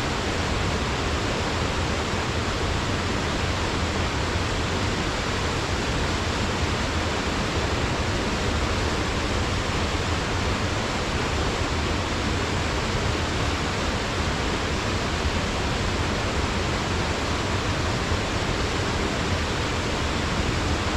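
Waterfall pouring steadily into its plunge pool, a dense unbroken rush with a deep rumble underneath.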